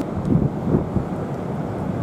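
Wind buffeting the camera microphone: a steady, low, gusting rumble.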